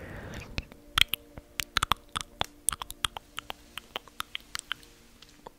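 Close-miked ASMR plucking sounds: an irregular run of sharp clicks and snaps, several a second, the loudest about a second in.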